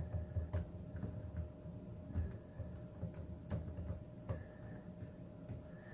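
Faint, irregular small clicks and taps of a screwdriver tip working a terminal screw on a garbage disposal's wiring compartment, with light handling of the wires.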